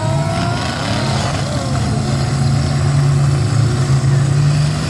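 Demolition derby cars' engines running loud and steady, growing a little louder in the second half.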